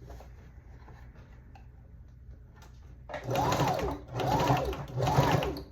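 Janome sewing machine running in three short bursts over the second half, the motor speeding up and slowing back down each time, as it stitches hair weft onto a wig cap.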